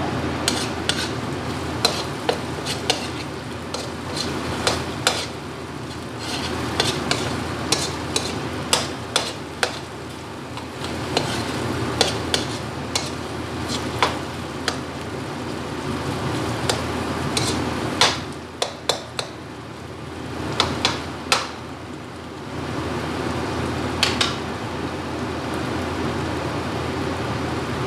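Metal ladle stirring in a steel wok, with sharp scrapes and knocks against the pan, over the steady sizzle of diced sausage and mixed vegetables frying. The knocking stops near the end, leaving only the sizzle.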